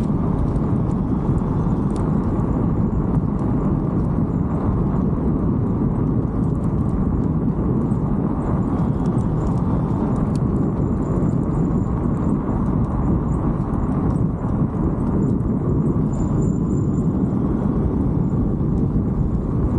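Steady rumble of bicycle tyres rolling over a rough paved park road, mixed with wind noise on the handlebar-mounted microphone. A faint, thin, high-pitched squeak comes and goes, loudest a few seconds before the end: the bike's squeaky brake, which sounds like a cricket.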